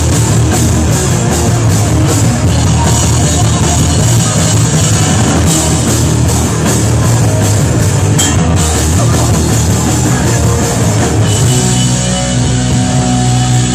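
Hardcore band playing live and loud: guitars, bass and drums. Near the end the drums stop and a held chord rings on.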